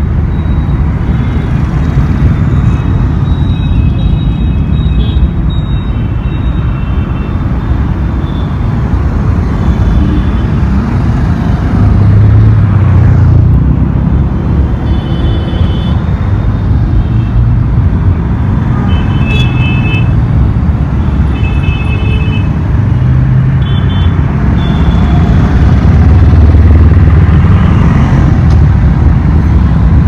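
Heavy city road traffic passing close by: a steady rumble of motorcycle and car engines and tyres, swelling louder as vehicles pass near about twelve seconds in and again near the end. Short high horn toots sound at several points.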